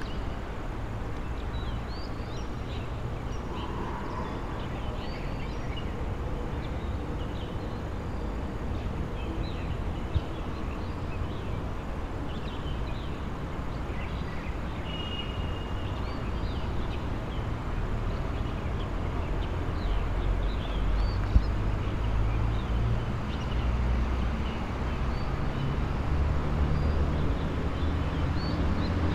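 City outdoor ambience: a steady low rumble of traffic and wind on a small camera microphone, swelling in the second half, with faint high bird chirps scattered throughout and a couple of single clicks.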